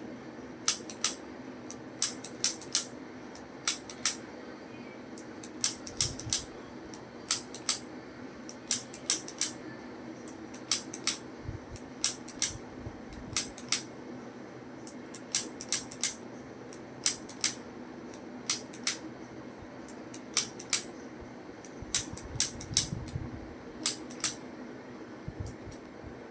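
Sharp clicks in quick runs of two to four, recurring every second or two, over a steady low hum, with a few faint low thuds.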